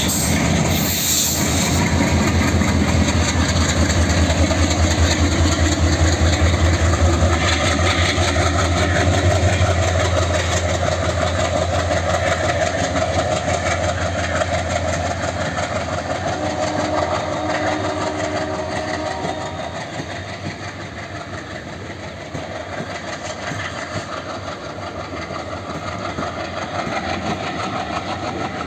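Two WDG3A Alco diesel locomotives chugging under power as they pull a train away, a fast, even exhaust beat that is loudest for the first ten seconds or so and then fades. Passenger coaches rolling past on the track take over as the locomotives move off.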